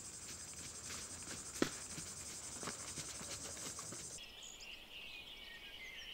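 Faint insect chirring, a fast high-pitched steady trill with one sharp tick about one and a half seconds in. About four seconds in, the chirring stops abruptly and gives way to birds chirping and twittering.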